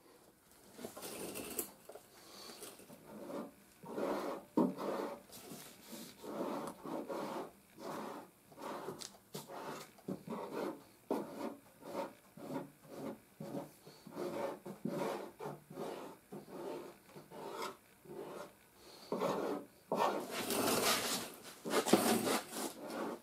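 A perforated body-filler grater file (cheese-grater file) rasping across body filler on a truck's steel wheel-arch panel in repeated hand strokes, about one to two a second, heavier near the end.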